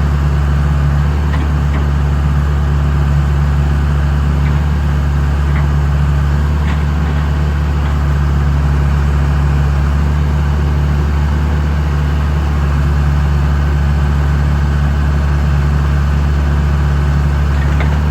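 John Deere 310E backhoe's diesel engine running steadily at an even pitch.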